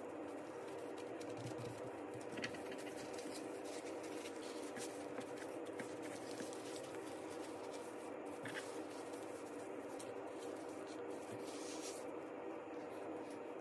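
Faint crinkling and scratching of a dried seaweed (nori) sheet and thin plastic gloves as the nori is folded over a rice sandwich, with a few soft ticks. A steady background hum runs underneath.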